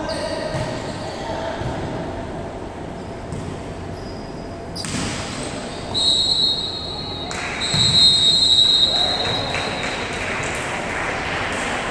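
Two long blasts of a referee's whistle in quick succession just past the middle, the loudest sound here, over players' voices and the thumps of a volleyball in a gym.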